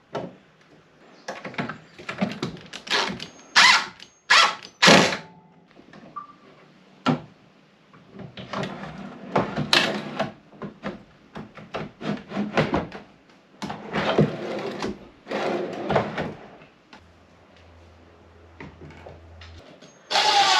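Irregular wooden knocks and thunks, with longer stretches of scraping or rubbing in the middle, from cabinet panels and doors being handled and fitted.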